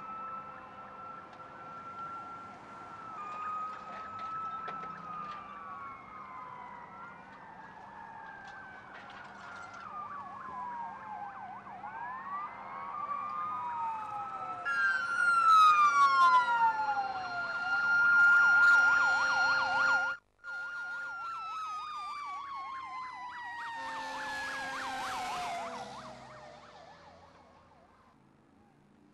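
Several emergency-vehicle sirens wailing at once, their pitches sliding up and down and overlapping. After a brief dropout past the middle a faster warbling yelp joins in, and the sirens fade out near the end.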